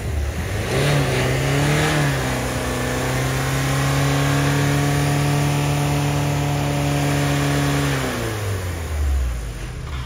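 Ford EcoSport diesel four-cylinder engine revved up from idle, held steady at high revs for about six seconds, then let fall back to idle near the end, heard at the tailpipe. It is a flood-damaged ("water lost") car running again after repair.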